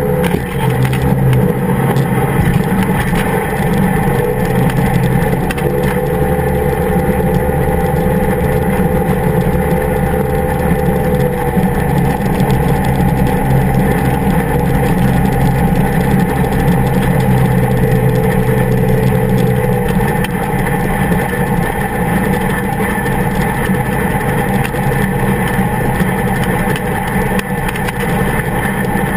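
Powered parachute's engine and propeller running steadily at low power while the cart rolls across grass, its pitch shifting a little now and then.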